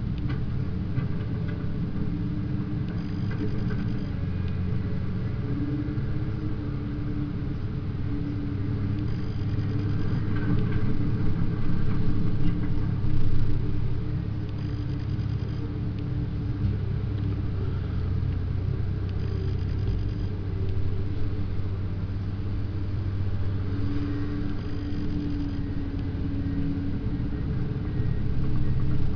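Komatsu crawler excavator's diesel engine running and working its hydraulics, a steady low rumble that swells louder for a few seconds around the middle.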